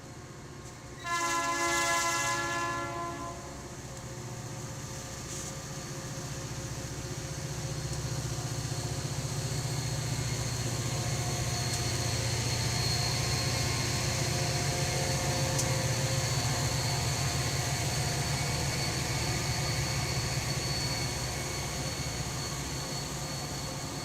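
Locomotive's multi-tone horn sounding one blast of about two seconds about a second in, then a train passing with a steady rumble that builds up, peaks, and eases off near the end, with a faint high whine over it.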